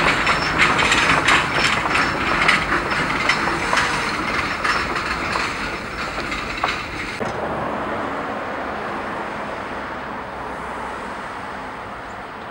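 The caboose at the tail of a freight train rolling away along the track, its wheels clicking over the rail joints as the sound fades. About seven seconds in it cuts abruptly to a quieter, steady hiss of road traffic.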